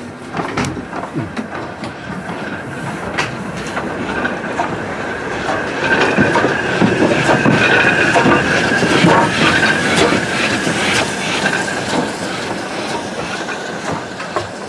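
BR Standard Class 4 2-6-4 tank steam locomotive 80080 passing close by at low speed, growing louder to a peak about halfway through and then easing off. Its wheels give a drawn-out squeal, with sharp clanks and clicks over the track.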